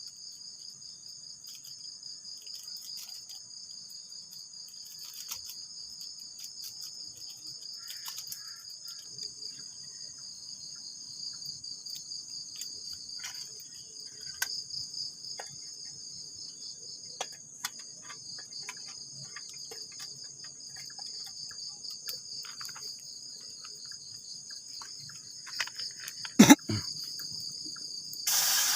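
Insect chorus trilling steadily at a high pitch, with scattered faint clicks and one loud knock near the end.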